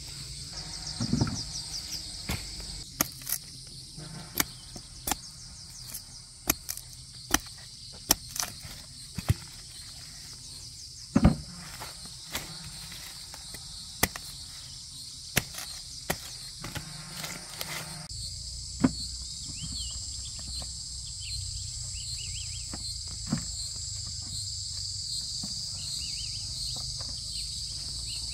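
A steady, high-pitched insect chorus, with sharp knocks and clicks scattered through the first two-thirds.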